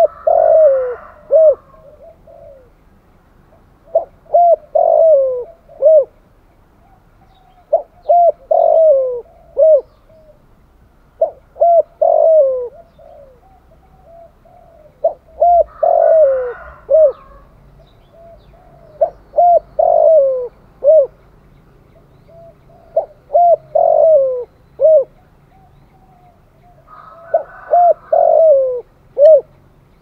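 Spotted dove cooing its song in repeated phrases, about one every four seconds, eight in all. Each phrase is a few short coos around a longer falling coo, ending with a short final coo.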